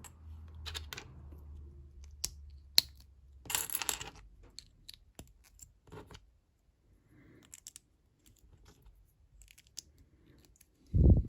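Small LEGO plastic pieces clicking and clinking as they are handled and pressed together, with a short rustle about a third of the way in. A single low thump near the end is the loudest sound.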